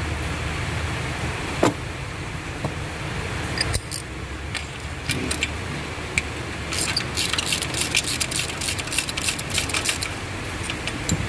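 Ratchet and spark plug socket clicking and metal tools clinking while spark plugs are worked out of the engine: a few single clicks, then a dense run of quick clicks for about three seconds in the second half. A steady low hum runs underneath.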